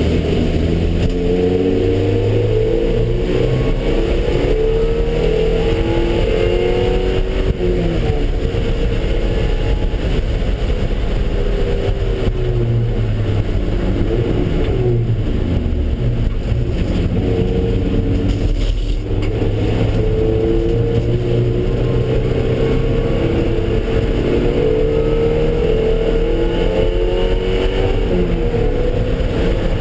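Car engine under hard acceleration on a race track, its pitch climbing and dropping again and again through gear changes and lifts for corners, over steady road and wind noise.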